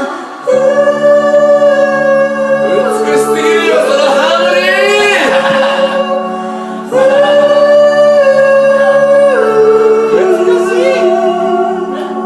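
Music: a song's ending, with two long held chords, the second starting about seven seconds in, and a wordless sung melody winding over them.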